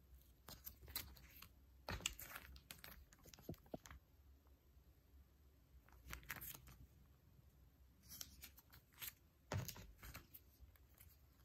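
Clear plastic banknote sleeves and polymer notes crinkling and rustling as they are handled, in short irregular spells with sharper crackles, the sharpest near the end.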